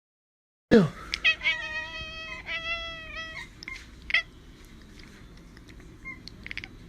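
A cat meowing: a sharp loud cry about a second in, then two long drawn-out meows back to back, followed by a few small clicks and a brief chirp.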